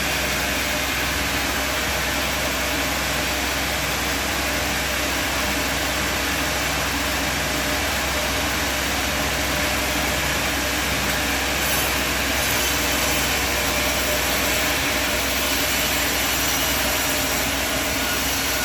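Sawmill machinery running steadily: an even, unchanging noise over a constant low hum.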